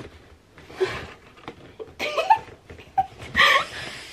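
A woman laughing and giggling with excitement, with a few short knocks from a large cardboard box being handled.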